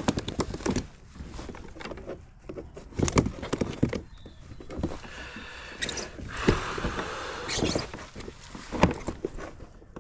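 Irregular knocks and clatters of rods and gear against a plastic kayak's hull and deck. A short hissing rush comes about six and a half seconds in.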